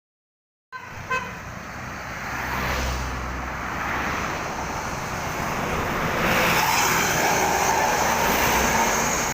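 A large vehicle, likely a bus, running along the road close by. Its engine drone and road noise grow louder in the last few seconds as it comes nearer, and a short pitched toot sounds about a second in.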